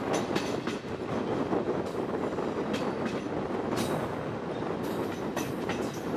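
Regional train running through a rail yard, heard from an open carriage window: a steady rumble of wheels on rail, broken by about eight or nine irregular sharp clacks as the wheels cross the switches and rail joints.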